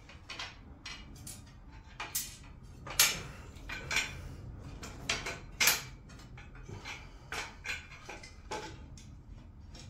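Steel bracket plates and bolts of an MFX004 stationary pull-up bar clinking and knocking irregularly as they are shifted to line up the bolt holes, with two louder metal clanks about three seconds in and a little before six seconds.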